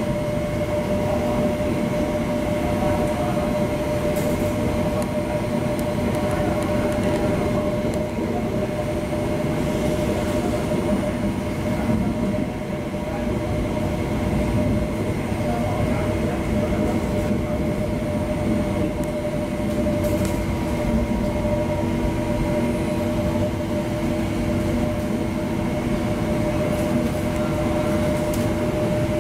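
Interior running noise of an MTR IKK-train moving at a steady speed: a constant rumble with a steady multi-tone whine that holds the same pitch throughout.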